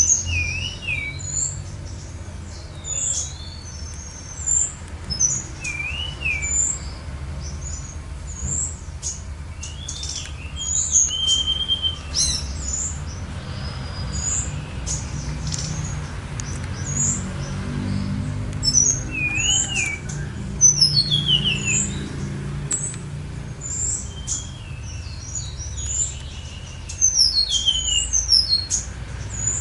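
Songbirds singing in quick high chirps and slurred whistled phrases, among them a recurring wavy whistle, over a steady low rumble.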